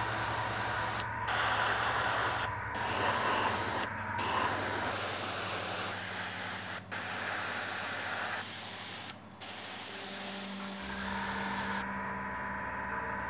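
Airbrush spraying paint in a steady hiss, with about five brief breaks as the spray stops and starts, and cutting off near the end.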